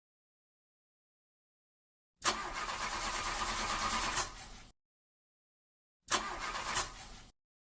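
A car engine cranking on its starter without catching, in two separate attempts: one of about two and a half seconds, then a shorter one of about a second. Each starts sharply and cuts off abruptly to dead silence.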